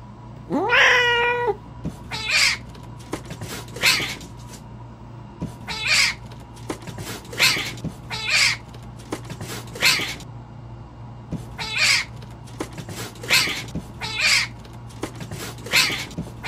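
Kittens meowing: one long meow near the start that rises and then holds, followed by a string of short, high-pitched mews about once a second.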